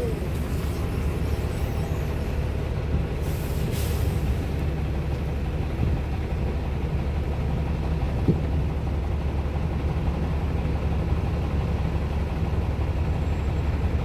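Steady low outdoor rumble of strong sea wind on the microphone mixed with engine noise, with a short hiss about three seconds in.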